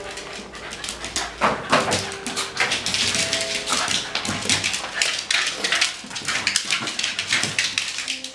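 Shiba Inus play-wrestling on a hard smooth floor: rapid clicking and scrabbling of claws, with high whines and short yips from the dogs.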